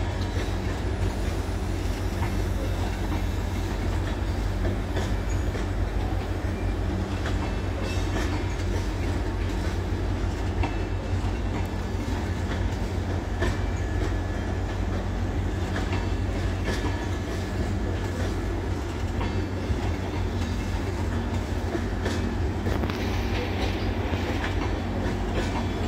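Tejas Rajdhani Express passenger coaches rolling on the track: a steady low rumble of wheels on rail, with scattered clicks over the rail joints.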